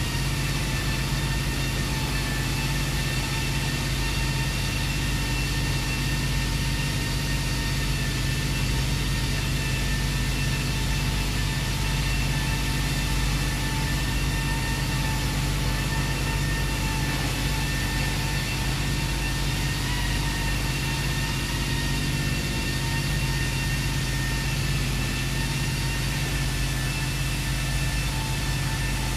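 Steady machine drone: a low rumble with a constant high whine over it, unchanging throughout.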